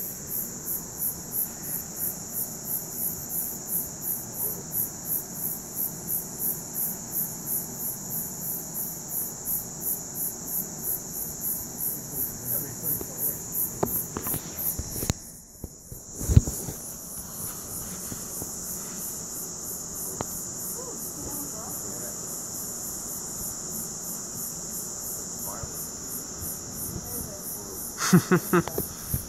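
Night insects chirping in an even pulse of about two to three chirps a second over a steady high buzz. About halfway the sound drops out briefly, there is a single thump, and the chirping pulse stops, leaving only the steady buzz; a few knocks come near the end.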